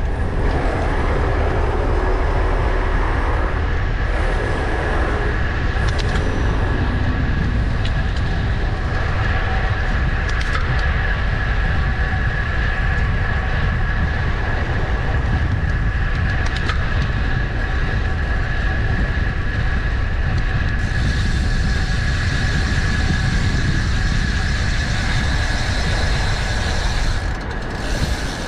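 Wind buffeting the microphone of a moving bicycle over steady city traffic noise, with a thin steady high tone through most of it.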